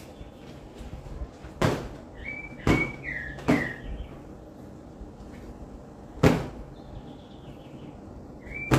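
Four sharp thumps as a cloth is slapped against and cushions are beaten on a fabric sofa to knock the dirt out. A bird chirps briefly in between, and again near the end.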